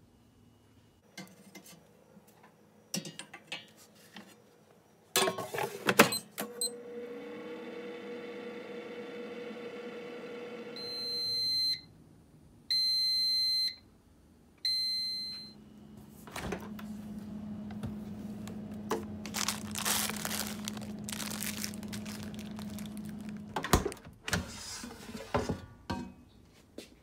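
An air fryer's basket clatters into place and the fryer starts, with a steady fan hum. It gives three long electronic beeps, then runs with a steady hum while heating the aluminium gearbox case halves. Near the end the basket is pulled out with a clunk.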